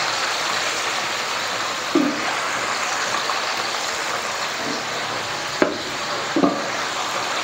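Turmeric fish head curry simmering in a wok on the stove, a steady bubbling hiss, with a few short knocks.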